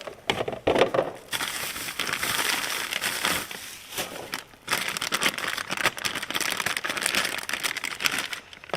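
Crinkling and crackling of packaging being handled, as a new ignition coil is unpacked from its wrapping.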